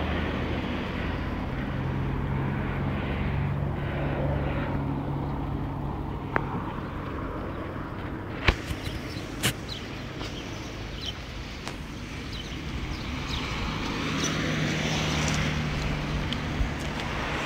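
Road traffic passing on a nearby street: a car's engine hum near the start, fading out, and another near the end over a steady background noise, with a few sharp clicks in between.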